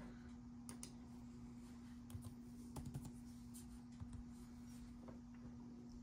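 Faint, scattered key taps on a laptop keyboard as a number is typed in, over a steady low hum.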